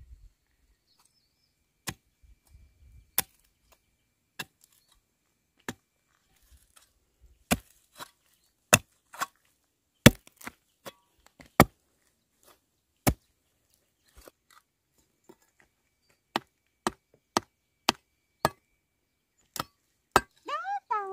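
Wood being chopped with a blade: a long run of single, sharp blows at an uneven pace of about one a second. A short pitched cry comes in just before the end.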